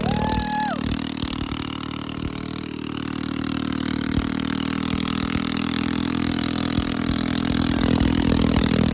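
Mini bike's small engine idling steadily. A short beep sounds right at the start.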